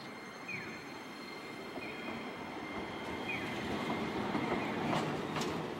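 Tosaden Heartram low-floor tram running past on street track, its rolling noise growing louder as it comes by. Sharp wheel clacks start near the end.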